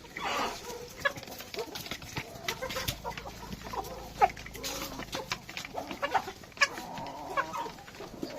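A flock of desi country chickens clucking and calling, with many short calls overlapping.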